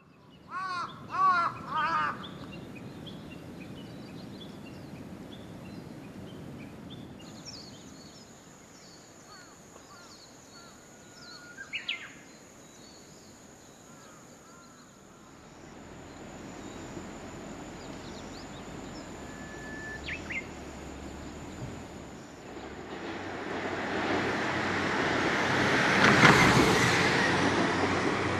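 Outdoor ambience: a bird gives several quick rising-and-falling calls at the start, with scattered bird calls after. From about 23 s in, a diesel railcar on the non-electrified Kisei Main Line approaches and grows louder, peaking around 26 s.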